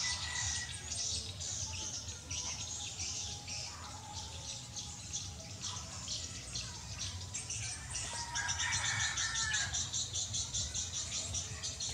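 Small birds chirping and twittering in rapid, repeated high notes, densest about two-thirds of the way in, over a steady low hum.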